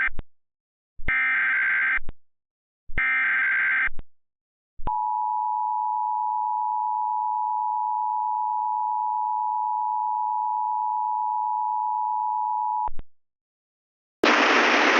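Emergency Alert System (EAS) tones. Two more of the three screechy SAME header data bursts, each about a second long, are followed by the steady two-tone EAS attention signal held for about eight seconds. Near the end, after a short gap, a loud hiss of radio-style static starts up.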